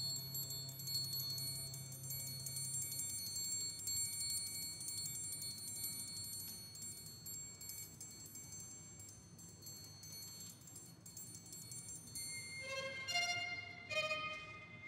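Quiet contemporary chamber music for bass flute, violin, cello and percussion: soft sustained high ringing tones with a low held note that stops about three seconds in. Near the end a few quick struck metallic notes ring out.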